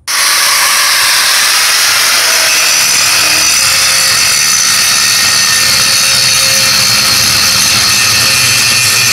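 Handheld angle grinder running steadily under load, its disc grinding through a steel weld.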